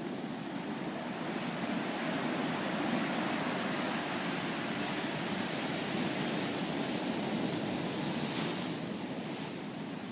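Heavy storm surf: a large wave breaking and rushing in, the rush building over the first couple of seconds and easing off near the end.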